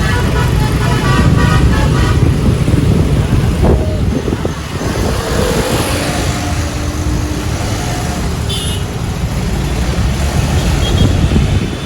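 A bus's Basuri 'telolet' multi-tone musical horn playing notes for about the first two seconds, over a loud low rumble of engine and road noise. The rumble carries on, with a few short faint tones later on.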